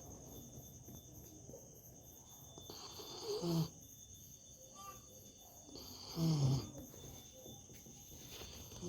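A sleeping dog snoring: a snore about every three seconds, each swelling and ending in a short low falling grunt.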